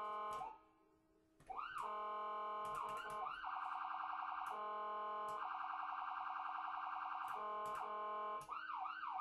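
Background music on guitar: held notes with pitch bends, and a fast warbling figure played twice. The music drops out about half a second in and comes back about a second later.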